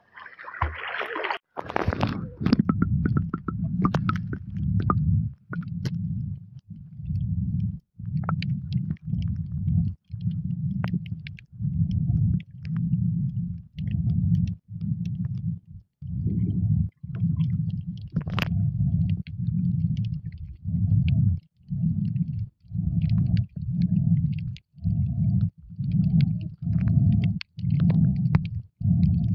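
A brief splash at the water surface, then the sound through a phone's microphone held underwater: a muffled low rumble that swells and breaks off about once a second, with faint scattered clicks and crackles.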